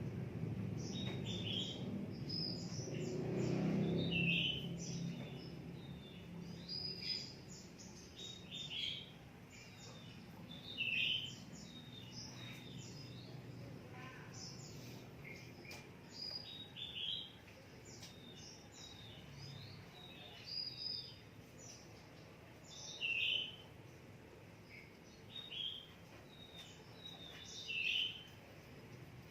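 Oriental magpie-robin (kacer) singing in short bursts of quick high notes and downward-swooping whistles, one phrase every two to three seconds, over a low background rumble in the first few seconds.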